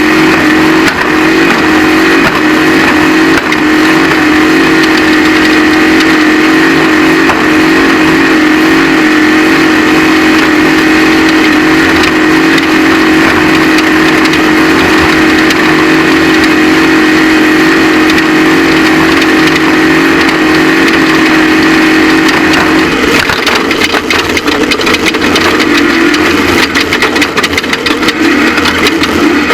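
Off-road race vehicle's engine running hard at a steady high speed. About three quarters of the way through the note drops and wavers, with rapid knocks and rattles over rough ground.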